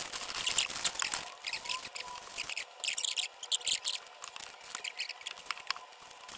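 Paper fast-food wrappers and sauce packets being handled and unwrapped, with irregular crinkling and rustling.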